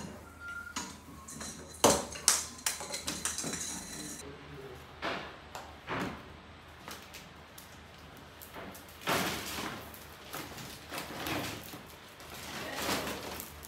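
Scattered clicks, knocks and rustling of handling as a strand of Christmas string lights is wound onto an artificial Christmas tree, with a sharp knock about two seconds in.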